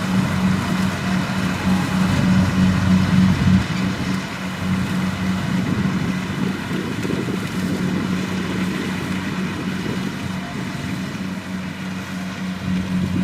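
Kubota DC-70 Plus rice combine harvester running steadily, its diesel engine giving a constant hum over the noise of the working machinery; the engine note eases slightly about four seconds in.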